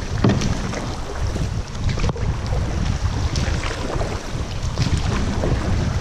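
Kayak paddles dipping and splashing in calm water, irregular splashes and drips from both paddlers' strokes, over a steady low rumble of wind noise on the microphone.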